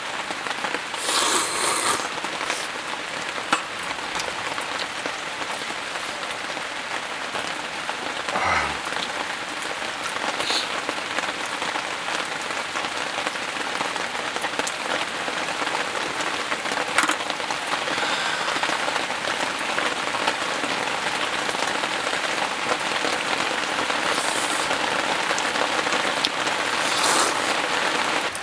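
Steady rain falling on a surface, a dense even patter that grows heavier for a moment near the start and again near the end. A brief falling tone sounds about a third of the way in.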